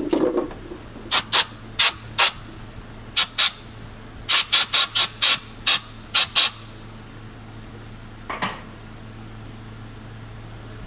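Short hissing spray bursts of cleaner aimed at an engine-bay wiring connector to clean it before reassembly. About fourteen quick squirts come in pairs and runs over about five seconds, then one more a couple of seconds later.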